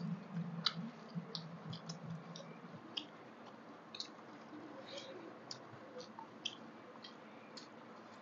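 Close, quiet eating sounds: scattered soft wet clicks and squishes of fingers mixing rice on a banana leaf and mouths chewing, with a faint low hum over the first three seconds.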